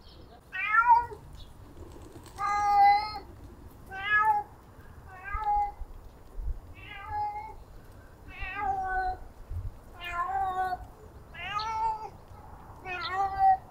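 A tomcat meowing again and again, nine short calls about one every second and a half, calling out while he searches for a female cat.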